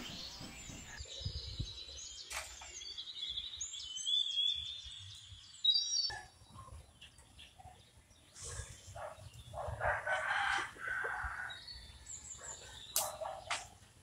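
Small birds chirping, then a rooster crowing once, about ten seconds in, with a sharp click near the end.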